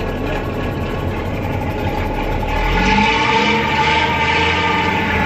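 MAN 22.190 truck's diesel engine running; about three seconds in its pitch rises and holds at a higher, steady tone.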